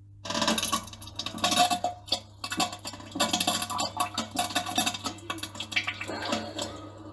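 Diarrhea sounds: a rapid, irregular run of spluttering bursts and splatters, starting a moment in, over a steady low hum.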